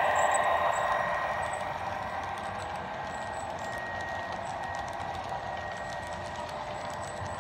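HO-scale model train running past, its locomotives' TCS WOW sound decoder playing diesel engine sound over the whir of the motors and the rolling of the wheels on the track. It is loudest in the first second as the locomotives pass, then drops to a steadier, quieter rolling as freight cars and a caboose follow.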